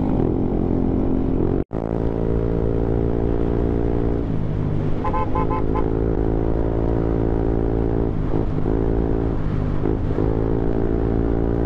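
Yamaha motor scooter's engine running steadily at cruising speed while being ridden, its pitch dipping and rising again a few times as the throttle changes. The sound cuts out briefly just under two seconds in.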